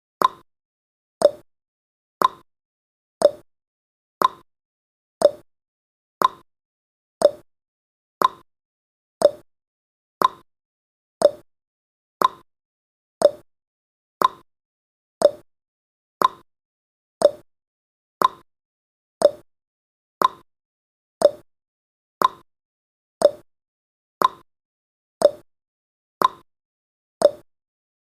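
Countdown timer's sound effect: a short, sharp click once a second, evenly spaced, marking off the seconds.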